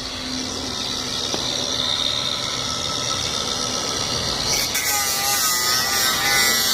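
Angle grinder running and cutting into a metal bike lock, a steady high whine; about four and a half seconds in the sound gets harsher and its pitch wavers as the disc bites into the metal.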